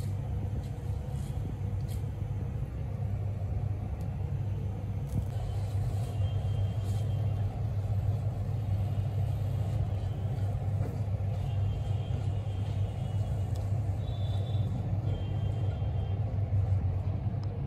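Steady low rumble, with faint light clicks and scrapes over it.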